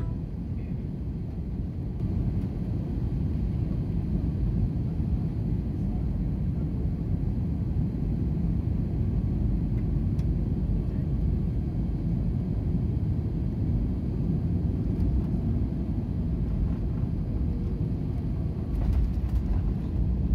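Inside an airliner's cabin during landing: a steady low rumble of the jet engines and airflow. Near the end it grows louder and rougher, with a few sharp knocks, as the plane reaches the runway.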